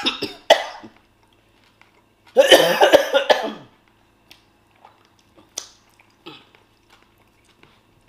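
A woman coughing hard in a put-on coughing fit. There are a couple of coughs at the start and a longer bout of several coughs around two and a half to three and a half seconds in, then only a few faint clicks.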